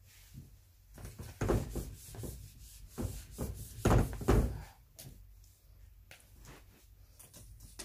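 Cloth wiping a whiteboard in a series of quick rubbing strokes, with the board knocking and thudding under the pressure, heaviest about four seconds in. A few light clicks follow near the end.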